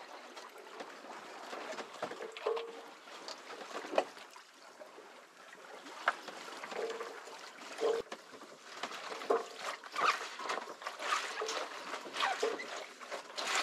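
Sea water sloshing and splashing against a sailboat's hull under way offshore, in irregular surges with short knocks and splashes throughout.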